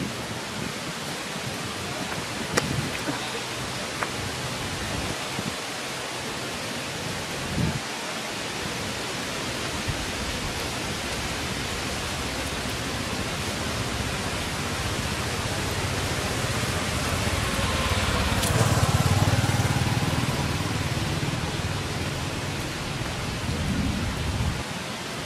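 Light rain falling steadily on forest foliage, an even hiss, with a few sharp clicks in the first eight seconds and a louder swell with a low rumble about eighteen seconds in.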